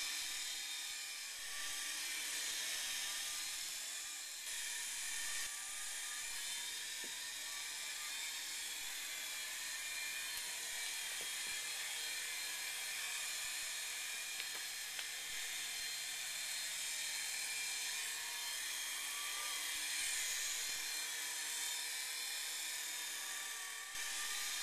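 LS-109 Gyro 3.5-channel RC toy helicopter flying, its small electric motors and spinning rotors giving a steady high-pitched whine that rises and falls a little in pitch now and then.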